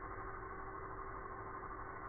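TIG welding arc at 300 A on a steel pipe root pass, heard slowed down: a steady, muffled drone with a faint steady hum in it.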